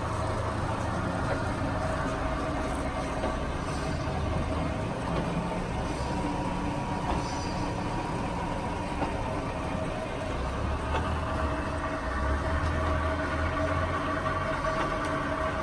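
LeBlond Regal 18-inch by 30-inch engine lathe running with its chuck spinning: a steady low hum with a couple of steady whining tones over it.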